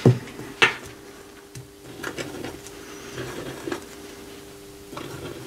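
Two sharp taps about half a second apart near the start, then soft scratching and light ticks of a white gel pen on watercolour paper, over a steady low hum.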